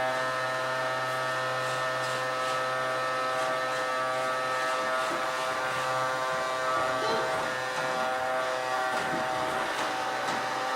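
Vacuum cleaner running steadily, its motor giving an even buzzing whine.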